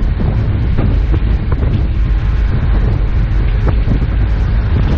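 Steady low rumble of an off-road 4x4 driving along a snow-covered road, engine and tyres together, with wind buffeting the microphone. A few light knocks come through the rumble.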